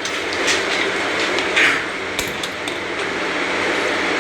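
Several sharp knocks and metallic clinks, with the loudest about one and a half seconds in, from a fire extinguisher wall clamp being fitted. They sound over a steady background noise.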